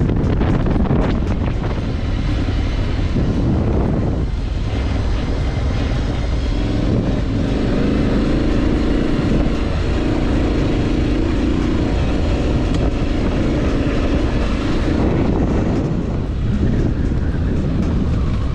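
Motorcycle engine running while riding, with wind rushing over the microphone; the engine note holds steady through the middle stretch.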